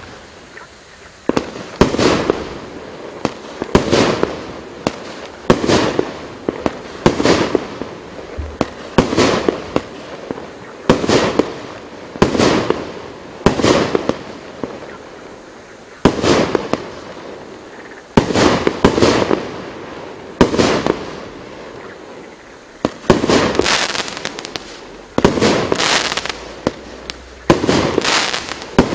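A 16-shot consumer firework cake with 25 mm tubes fires its shots one after another, roughly every one and a half to two seconds. Each shot is a sharp report followed by about a second of crackling from the bursting stars.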